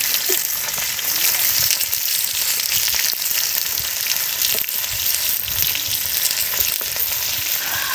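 Fish frying in hot oil in a steel wok: a steady sizzling hiss with many small crackles and pops.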